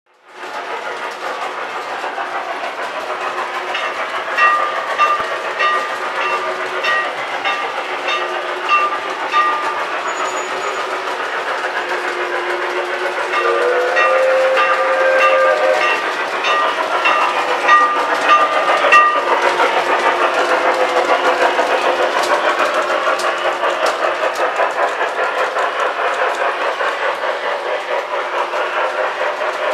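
G-scale model trams and trains running on the track: a steady mechanical running noise with wheel clatter. Twice, for several seconds at a time, an evenly repeating tone sounds over it.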